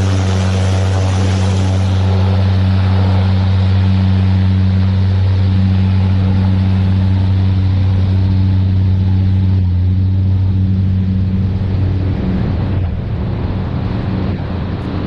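Cessna 208 Grand Caravan's single turboprop at take-off power: a loud, steady propeller drone with a strong low hum over a rushing noise. About twelve seconds in, the hum fades and the sound drops and turns rougher.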